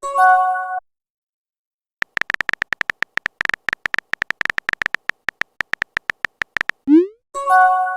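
Phone texting sound effects. A short chime opens it, then about five seconds of rapid keyboard-tap clicks. A quick rising swoosh of a message being sent follows, and the chime sounds again near the end.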